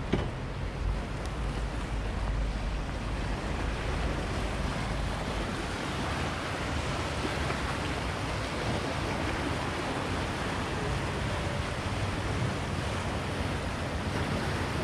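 Wind buffeting the microphone, heaviest for the first five seconds or so, over a steady hiss of sea wash along the harbour; a brief knock right at the start.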